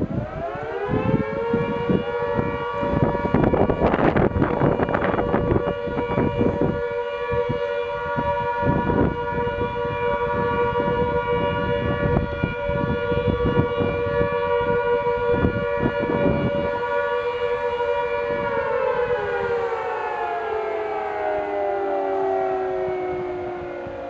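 Air-raid siren winding up within about a second to a steady note of two close pitches sounding together, held for around eighteen seconds, then slowly winding down in pitch near the end. Wind buffets the microphone throughout, hardest about four seconds in.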